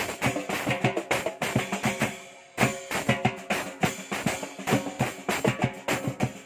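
A live percussion band plays a fast, driving rhythm on tall hand drums and a snare drum. About two seconds in the playing briefly stops, then comes back in with a loud hit.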